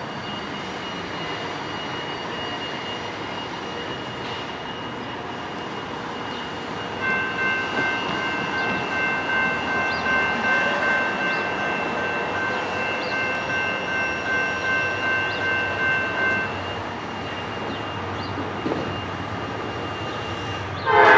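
The horn of an approaching Norfolk Southern GE AC44C6M locomotive, a Nathan P5 five-chime horn, heard at a distance. It sounds a chord of several notes from about a third of the way in, for roughly ten seconds, over a steady background hiss from the distant train.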